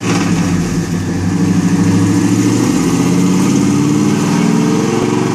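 Fourth-generation Camaro SS V8 running on a chassis dyno: a steady, loud exhaust note with a pulsing low end, its pitch creeping up a little about three and a half seconds in.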